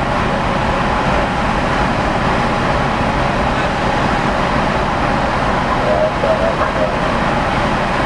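Steady low drone of a ship's engines and machinery, heard on the open deck of the ferry Vitsentzos Kornaros as it manoeuvres into port.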